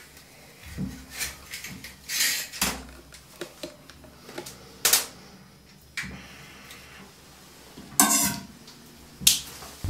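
Scattered clicks, knocks and rustles of a person moving about and handling things, with a few sharp, louder clatters.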